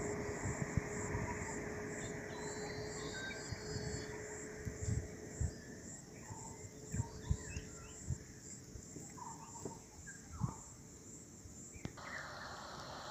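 Insects chirping in a steady, evenly pulsing high trill, with scattered low thumps and knocks.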